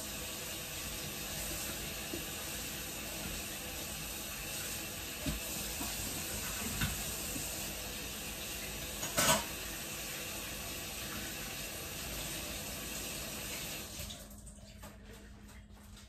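Kitchen sink faucet running steadily while hands are washed under it, with a few light knocks in the sink, the loudest about nine seconds in; the water shuts off near the end.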